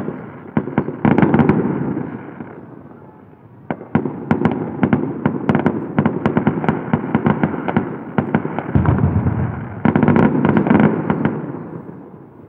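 Aerial fireworks bursting in rapid crackling volleys of bangs and pops. They ease off briefly about three seconds in, resume suddenly and densely, and thin out near the end.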